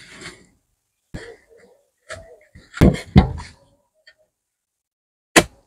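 Sand sliding off a metal shovel into a car tyre with a brief rustle, followed by scattered knocks and scrapes, a pair of louder thuds a little past the middle, and a sharp knock near the end.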